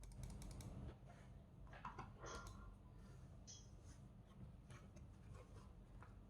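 Mechanical keyboard typed on, with Akko CS Starfish linear switches lubed with 205g0 and Akko ASA-profile keycaps: a quick run of keystrokes in the first second, then scattered single keystrokes.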